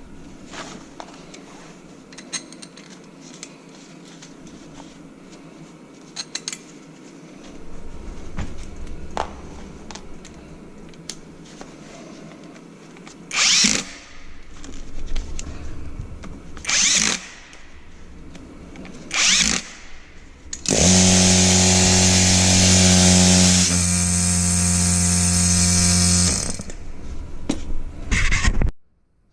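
Electric motor run in three short bursts, then held for about five seconds at a steady pitch with a low hum, its sound shifting slightly partway through, before a last short burst.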